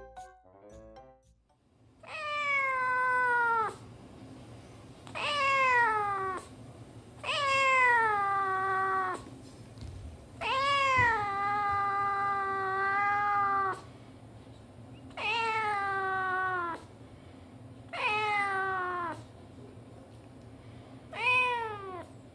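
A black cat meowing repeatedly from inside a wire cage: about seven long, drawn-out meows, each falling in pitch, with short pauses between.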